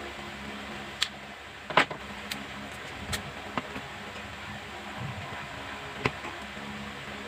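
Scattered sharp clicks and taps from tools and parts being handled, about six in all, the loudest a double knock about two seconds in, over a steady low hum.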